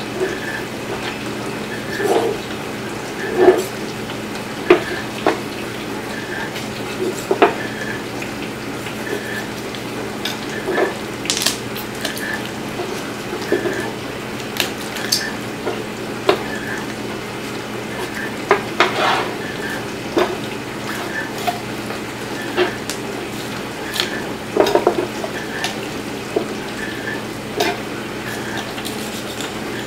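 A boning knife and a raw whole chicken handled on a plastic cutting board: scattered knocks, taps and clatters as the bird is cut into pieces, over a steady low hum.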